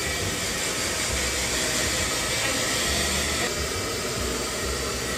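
Handheld hair dryer blowing steadily, drying a child's freshly cut hair. Its hiss dulls slightly about three and a half seconds in.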